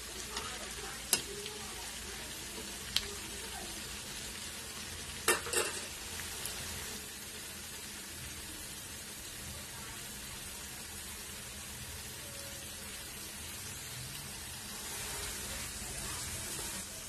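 Sliced onions deep-frying in hot oil in a kadhai, a steady sizzle. A few sharp clinks of a steel slotted spoon against the pan come in the first six seconds as the onions are stirred.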